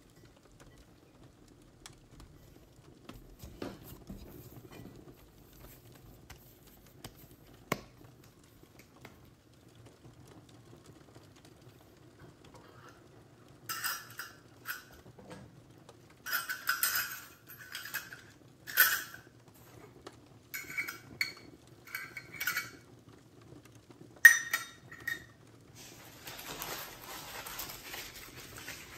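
Hands working dough in a ceramic bowl, faint and soft, with a single sharp click about a quarter of the way in. From about halfway a metal mesh sieve gives a run of sharp metallic clinks and taps, the loudest one near the three-quarter mark, followed near the end by a soft rustling hiss.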